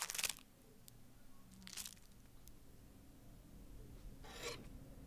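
Three short rasping, scraping noises over a faint low hum: one right at the start, a smaller one just before two seconds in, and the longest about four seconds in.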